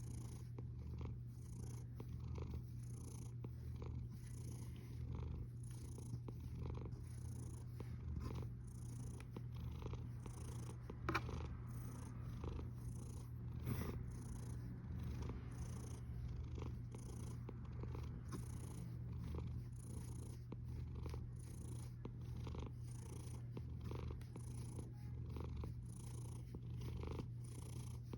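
A sleeping cat snoring: a steady low rumble with a soft breath sound about every second and a half. A single sharp click about eleven seconds in.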